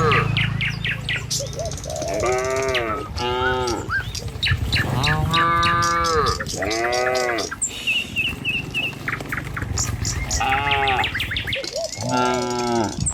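Cattle mooing about six times, each call short and rising then falling in pitch, with songbirds chirping between and over the calls.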